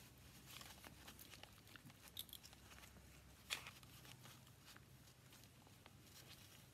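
Faint rustling of a fabric ribbon and paper as fingers tie a bow on a handmade journal, with a few soft ticks, the loudest about three and a half seconds in.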